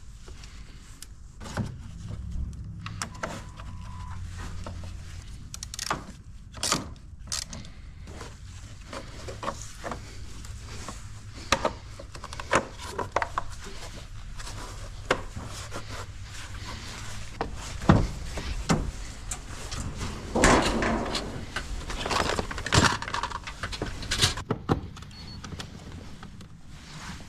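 Irregular clicks, knocks and clunks of hand tools and parts being handled in a car's engine bay as the intake boot is tightened and reassembly finished, with a faint steady low hum through the first half.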